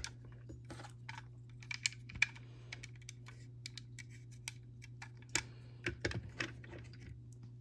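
Small, irregular clicks and taps of plastic LEGO bricks being pressed together and the model being handled, bunched in two short flurries.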